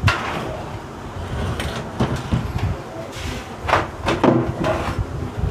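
Knocks and clatter from handling PC parts against a metal computer case during assembly, several sharp hits a second or so apart over a low background rumble.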